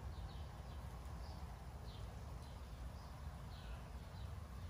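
Outdoor ambience: a steady low rumble with faint, short bird chirps about five times.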